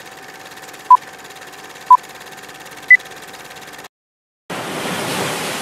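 Film-leader countdown sound effect: a short beep every second over the fast rattle and hum of a film projector, the fourth beep higher than the others. The sound cuts off, and after a brief gap a steady rushing noise begins.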